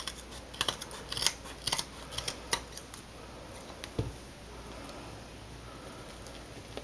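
Small scissors snipping through the woven backing and nylon fibres of a frieze carpet patch, a run of about ten crisp snips that stops about three seconds in. A single soft knock follows about a second later.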